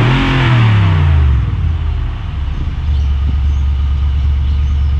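Nissan Y62 Patrol's 5.6-litre V8 through a newly fitted Torqit performance exhaust, blipped once and falling back to a steady idle about two seconds in.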